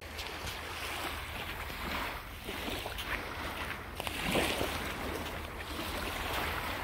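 Small waves washing onto a sandy beach. The surf hiss swells and ebbs a few times and is loudest about four seconds in, over a steady low rumble.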